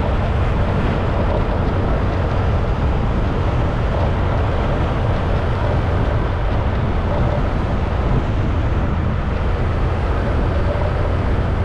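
Motorcycle riding along a road: a steady mix of engine, tyre and wind noise on the camera microphone, unchanging throughout.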